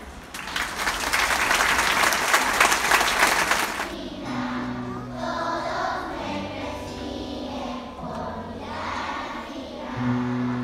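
Audience applauding for about four seconds, then many voices singing a song together, with a steady instrumental accompaniment under them.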